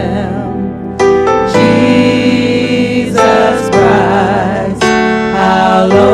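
Gospel worship music: singers hold long notes with vibrato over keyboard chords and bass, and the chords change every second or so.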